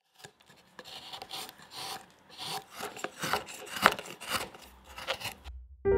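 Hand-pushed wood-carving gouge paring a soft wooden board: a run of irregular scraping cuts as shavings curl off, with one sharper click about four seconds in.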